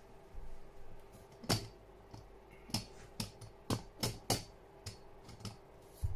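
Irregular sharp clicks and taps, about a dozen of them, the loudest about a second and a half in, over a faint steady hum.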